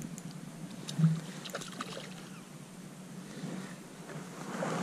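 A hooked crappie being reeled in on a spinning rod, with light scattered splashes and small clicks over a steady low background hum. There is one soft thump about a second in.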